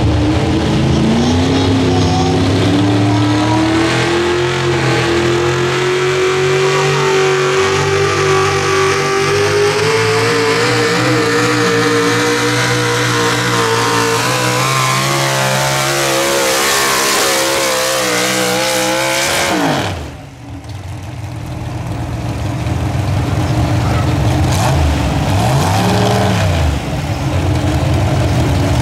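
Pulling tractor's engine at full throttle during a pull: the pitch climbs steadily over the first ten seconds and holds high, then drops sharply as the engine is cut about two-thirds of the way through. Afterwards the engine runs lower again, with one short rev near the end.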